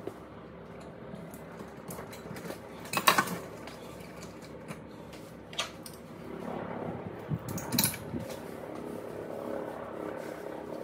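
Metal clinks and clicks of trailer hitch hardware being handled by hand as the trailer is connected: a few sharp clinks, the loudest about three seconds in and more around the middle, over a steady low hum.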